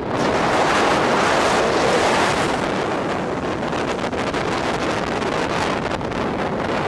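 Typhoon wind buffeting the microphone over surf on the shore, swelling louder for the first couple of seconds and then settling into a steady rush.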